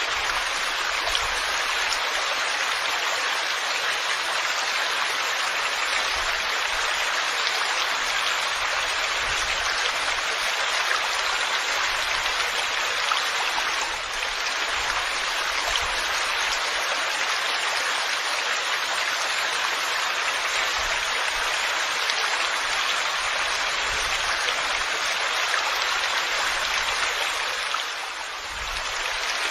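Heavy rain falling steadily, a dense even hiss that dips briefly near the end.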